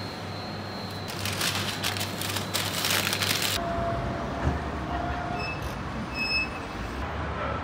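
Shop hum, then a couple of seconds of loud crackling rustle that stops abruptly. After that comes the steady rumble of city road traffic, with cars passing.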